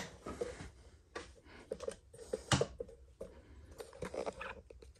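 Scattered light clicks and knocks of handling noise as the camera is moved and repositioned.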